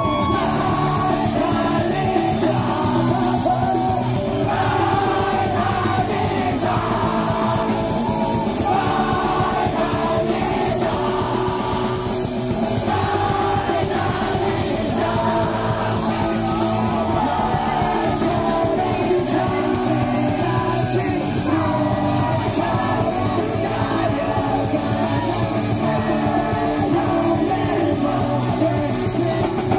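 Punk rock band playing live: electric guitars and drum kit with sung and shouted vocals.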